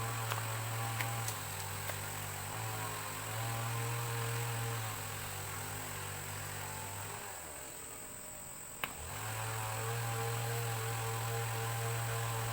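A steady low mechanical hum with overtones, like a small motor running. It fades out about seven seconds in and comes back after a sharp click about two seconds later.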